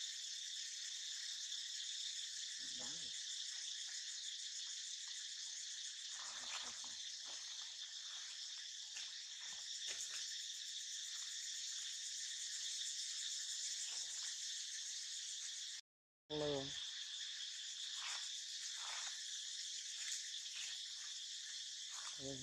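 Steady high-pitched chorus of insects. It cuts out briefly about two-thirds of the way through, and a short pitched call follows.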